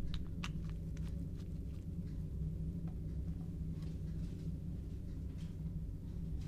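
Steady low electrical hum, with light clicks and taps of plastic dropper bottles and their caps being opened and set down on a tiled bench, mostly in the first second or two, and a few fainter glassware knocks later.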